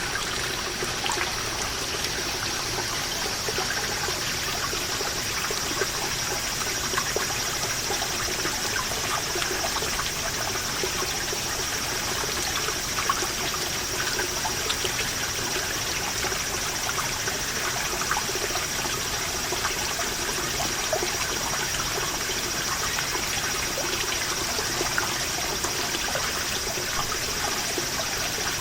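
Water seeping from a moss-covered rock wall and falling as many small drops in a steady dripping and trickling patter. A steady high-pitched chorus of cicadas sings over it.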